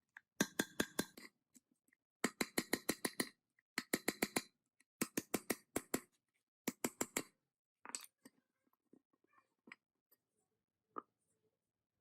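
Rapid, evenly spaced clicking in five runs of about a second each, then a few faint knocks near the end.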